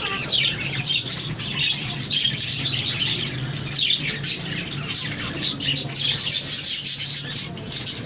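A flock of budgerigars chattering: many short, overlapping high chirps and warbles without a break, over a steady low hum.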